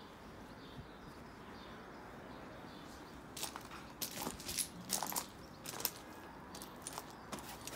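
Footsteps on slate chippings: after a quiet start, a run of irregular sharp crunches begins about three and a half seconds in as someone walks across the gravel.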